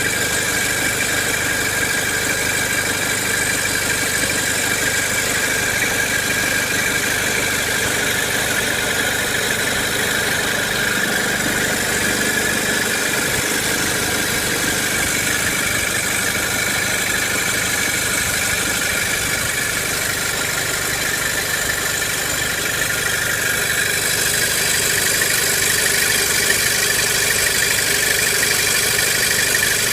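Audi A4 1.8T's turbocharged four-cylinder engine idling, with a steady high-pitched tone running over it. This is the noise the owner hears only with the Tiptronic automatic in R or D, not in P or N; he does not know its cause. About 24 seconds in, the sound changes and gets slightly louder.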